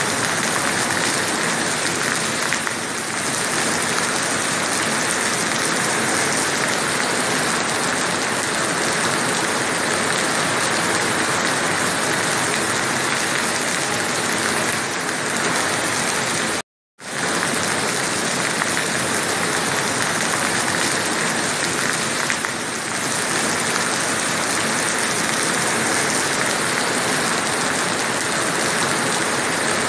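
Steady rain falling on a beach and the sea, a dense, even hiss that cuts out for a moment about halfway through.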